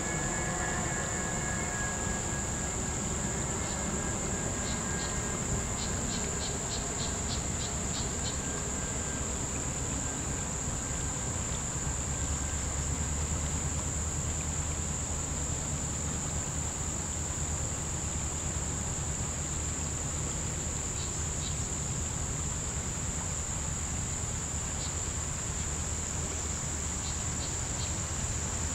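A steady insect chorus droning on one unbroken high pitch, over a low steady rumble. A quick run of short ticks comes about five to eight seconds in, and again near the end.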